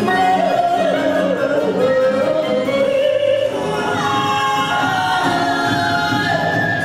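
A song with singing played over a hall's loudspeakers as the backing music for a dance.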